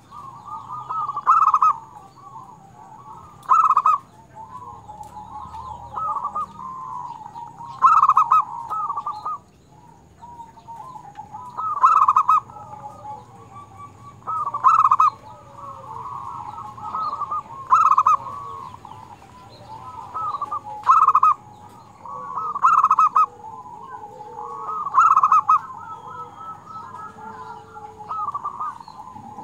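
Zebra dove (perkutut) singing: about ten loud cooing calls, one every two to four seconds, over steady softer cooing at the same pitch.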